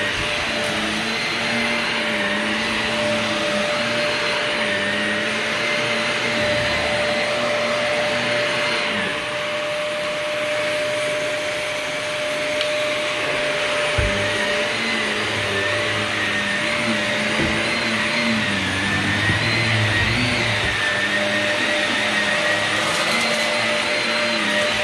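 Vacuum cleaner running continuously while pre-vacuuming carpet, a steady motor whine whose pitch wavers slightly as it is pushed along.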